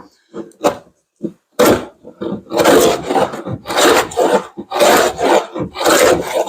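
Sargent 414 hand plane being pushed along live-edge cedar, with about five rasping strokes in a row at roughly one a second, cutting thick shavings. A few light knocks of the plane on the wood come first.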